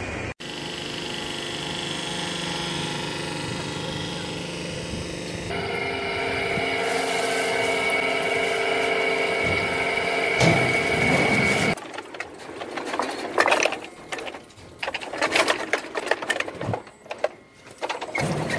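Steady machine hum with several held tones from the plate filter press's pumping equipment, growing louder about five seconds in. About twelve seconds in it gives way to irregular knocks and clatter.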